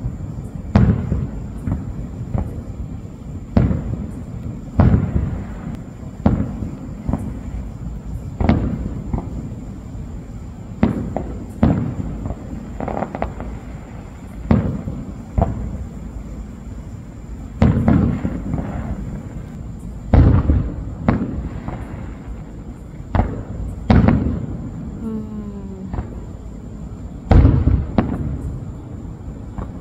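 Aerial fireworks shells bursting in a steady series of sharp booms, one every one to two seconds, each followed by a short low rumble.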